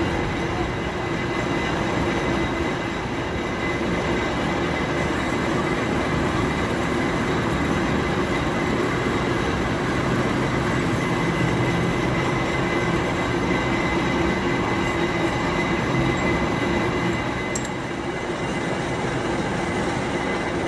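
Steady mechanical running noise of workshop machinery, with a low hum and a higher whine held at a constant pitch.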